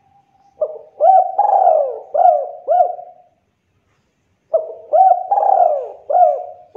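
Spotted dove cooing: two phrases of several low coo notes each, a second or so apart, the notes hooking up sharply in pitch.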